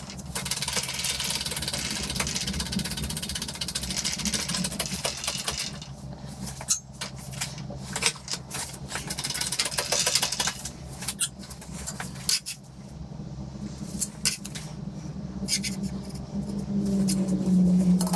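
Manual 20-ton hydraulic shop press being worked to straighten a bowed steel buffer beam: scattered clicks and knocks from the press and the steel, over a steady low hum.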